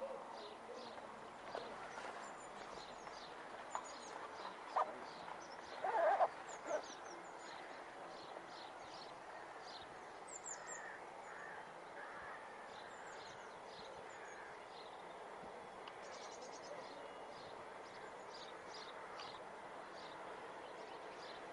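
Small birds chirping repeatedly over a steady background hum, with a few brief louder sounds between about five and seven seconds in.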